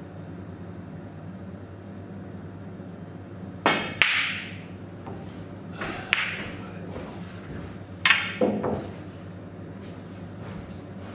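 Snooker balls knocking on a table: a sharp click of the cue striking the cue ball, a second ringing clack less than half a second later as it hits a red, then further knocks as the balls come to rest by a corner pocket and are gathered up. A steady low hum runs underneath.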